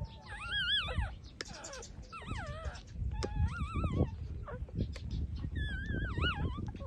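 Six-day-old puppies whimpering: about four high, wavering squeals that bend up and down in pitch, each under a second, over low shuffling noise.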